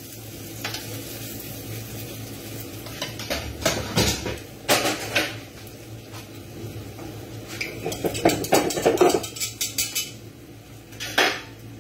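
Metal kitchen tongs clicking and cookware clattering while bacon rashers are laid on a plate. There are scattered sharp knocks, a quick flurry of them about eight seconds in and one more near the end, over a low steady hum.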